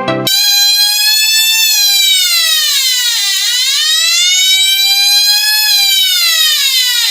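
Homemade single-transistor (A940) siren oscillator sounding through a small speaker: a buzzy wailing tone that starts abruptly. Its pitch sinks slowly to a low point about three seconds in, climbs back up, then eases down again.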